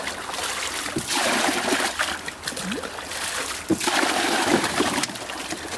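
Water poured from a bucket into a fish holding box, splashing into the water already in it, in two spells, one about a second in and one nearer the end.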